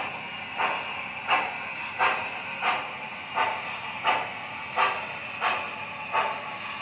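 Sound system (Proto-Sound 3.0) of an MTH O-gauge 4-6-4 J-1e Hudson model steam locomotive playing steam-exhaust chuffs through its onboard speaker as the engine moves slowly. The chuffs come evenly, about three every two seconds, over a steady hiss.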